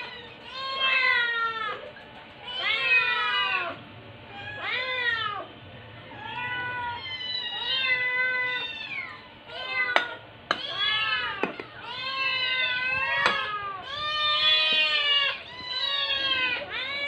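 Rescue kittens meowing loudly and insistently, one call after another about every second or two, with calls overlapping more in the second half: kittens begging for food. Two sharp clicks stand out, about ten and thirteen seconds in.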